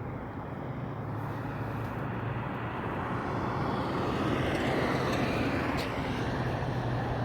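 A road vehicle approaching: a low steady engine hum and rushing road noise that grow gradually louder.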